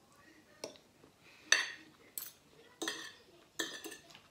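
Metal cutlery clinking and scraping against ceramic plates during a meal: about half a dozen short sharp clinks, the loudest about a second and a half in.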